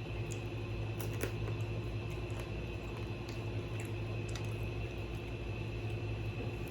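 Chewing of crispy fried food, with scattered faint crunches and mouth clicks over a steady electrical hum.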